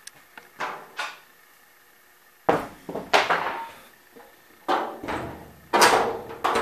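Sheet-metal clunks and knocks from a Nissan Sentra's hood, its inner bracing cut away, as it is lowered shut and handled. There are about six sharp knocks, each fading over about half a second, and the louder ones come from about the middle on.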